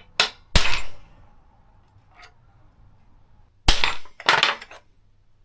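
Sharp metallic clanks and knocks of metal parts or tools being struck or set down: two in quick succession near the start, the second ringing briefly, and two more about a second before the end.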